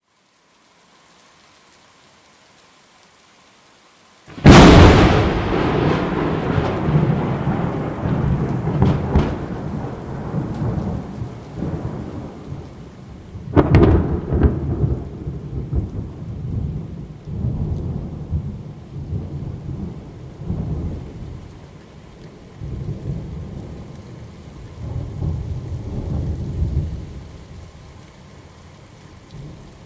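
Thunderstorm with steady rain: a sharp thunderclap about four seconds in and a second crack about ten seconds later, each rolling into a long low rumble that slowly fades.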